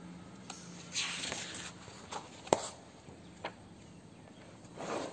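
Pages of a textbook being flipped by hand: a papery swish about a second in, a sharp click about halfway, a fainter one a second later, and another rustle near the end.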